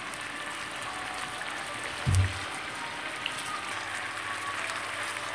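Chicken escalope rolls sizzling steadily in bubbling oil and honey in a frying pan, with one short low thump about two seconds in.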